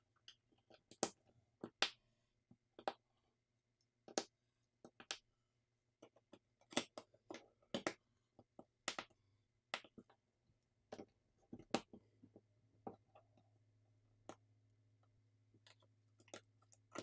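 Irregular small clicks and snaps of flex cable connectors being pressed home onto a smartphone's board sockets, with light handling of the phone's internal parts.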